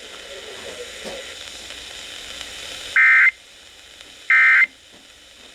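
Radio static hiss, then two short warbling data-tone bursts about 1.3 s apart: the EAS/SAME digital end-of-message bursts that close a weather alert broadcast.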